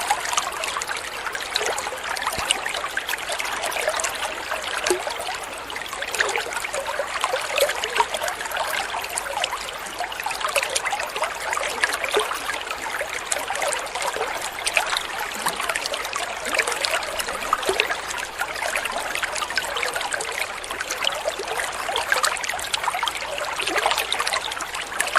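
Running water trickling steadily, with no breaks or changes.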